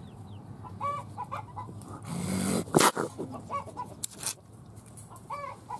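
Chickens clucking in short, scattered calls, with a short rush of noise ending in a sharp knock about halfway through and two more clicks soon after.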